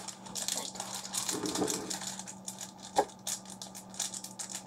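Crinkly plastic wrapper of a sweet crackling in quick irregular bursts as it is twisted and pulled open by hand, with one sharp click about three seconds in.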